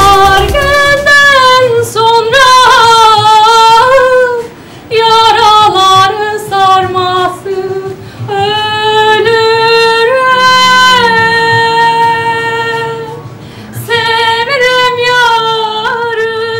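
A woman singing a slow melody with long held notes and ornamented turns. There is a short break about four and a half seconds in and another near the end.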